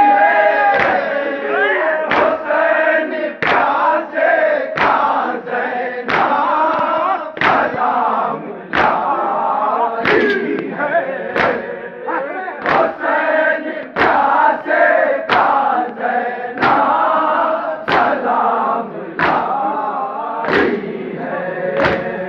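A crowd of men chanting a nauha, a Shia lament, together, with a sharp slap of hands striking chests (matam) in unison about every 1.3 seconds.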